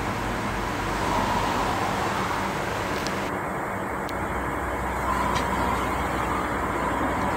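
Steady outdoor background noise: a low rumble and hiss with a faint hum, and no distinct events.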